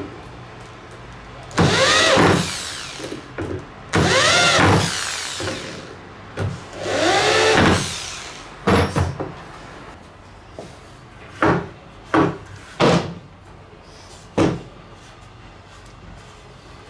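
Corded electric drill driving screws into a wooden board. There are three runs of a second or so each, the motor's whine rising and then falling in pitch, followed by several short bursts.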